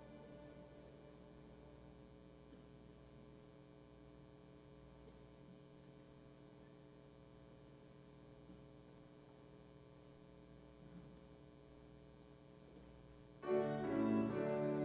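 A pause between pieces with only a faint steady electrical hum. About 13 seconds in, live music with violin and cello starts loudly.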